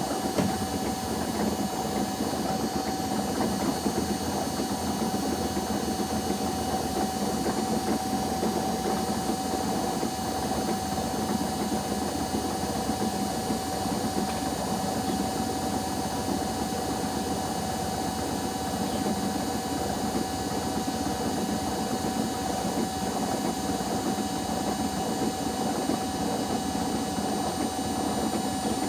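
Washing machines running a spin cycle: a steady motor hum with a constant whine, unchanging throughout.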